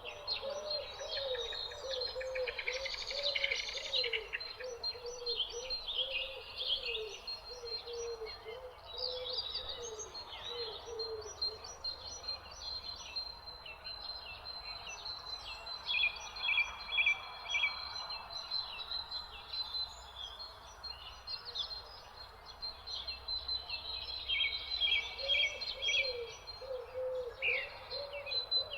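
Evening chorus of several songbirds chirping and trilling over one another, with a steady thin high tone underneath. A lower call repeats over and over for the first dozen seconds and again near the end.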